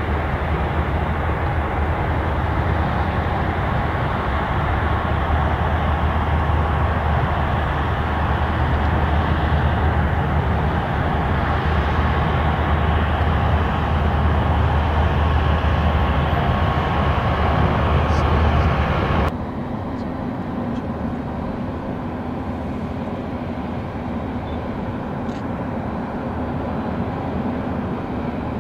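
Steady engine drone with a strong low hum over general airport noise. It cuts off abruptly about two-thirds of the way through, leaving a quieter steady background hum.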